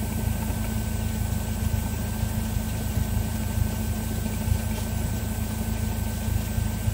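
Cessna 172's four-cylinder piston engine running steadily at low, idle-like power while the plane taxis.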